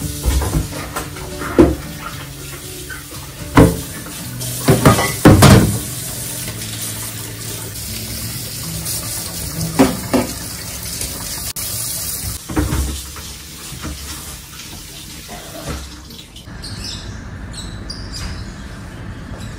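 Water running from a kitchen tap into a sink during washing-up, with several sharp clanks and knocks of dishes and plastic ware being handled. Near the end the sink sounds stop, leaving a quieter background with faint high chirps.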